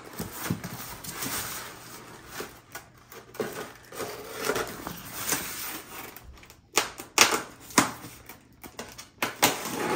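A taped polystyrene foam shipping box being handled and picked open on a table covered in plastic bags: rustling and scraping with many short clicks and knocks, the sharpest a little after the middle.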